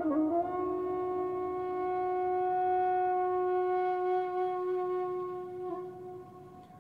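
Soundtrack music: a single long wind-instrument-like note that bends into pitch at the start, holds steady for about five seconds, then fades out near the end.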